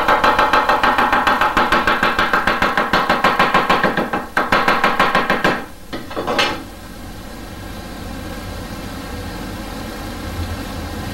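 Chinese cleaver rapidly chopping scallions on a wooden cutting board, an even run of several knocks a second that stops about five and a half seconds in, followed by a brief knock and scrape, then only a low steady hum.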